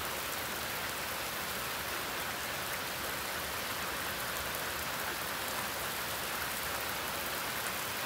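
Heavy hurricane rain pouring down steadily on a lawn, trees and yard, an even unbroken hiss.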